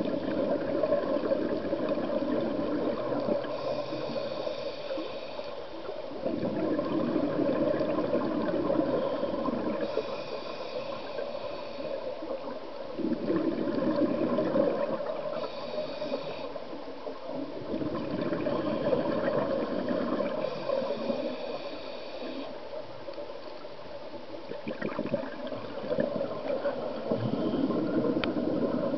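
Scuba diver breathing through a regulator underwater. A short hiss on each inhale is followed by a longer gurgling rush of exhaled bubbles, about five breaths, one every five to six seconds.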